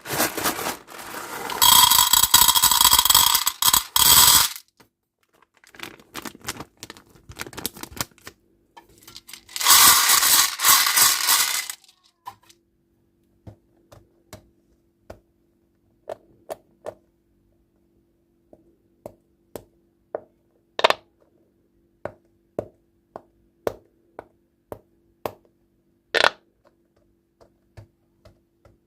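Plastic candy or toy packaging crinkling and rustling in two long handlings, then a long run of separate sharp clicks and taps of small hard objects set down or knocked against a surface.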